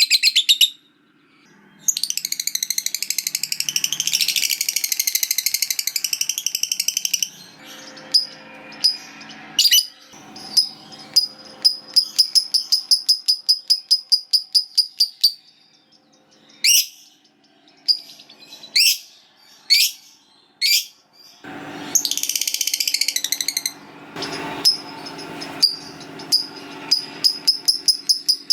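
A lovebird giving its long harsh rattling chatter, the 'ngekek panjang', about five seconds long near the start and again for about two seconds later on. Between the chatters come runs of rapid sharp chips and a few single quick upward squeaks.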